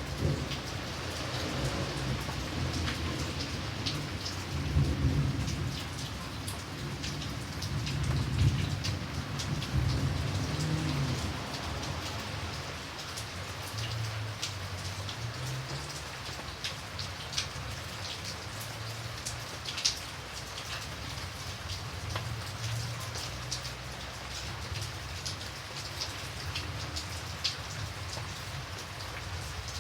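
Steady rain with many drops ticking on a surface. A low rumble of thunder runs through roughly the first half and then dies away.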